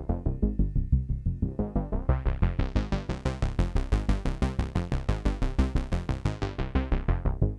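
Arturia MatrixBrute synthesizer playing a fast repeating sequence of about five notes a second through a Dave Smith Curtis filter of the Prophet-6 type. The filter opens about two seconds in, turning the notes much brighter, and closes again near the end, dulling them.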